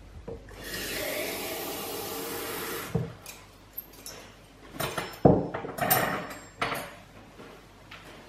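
Kitchen tap running into a glass for about two seconds, then a few knocks and clatters on a wooden worktop, the loudest about halfway through, as the glass and things on the counter are handled.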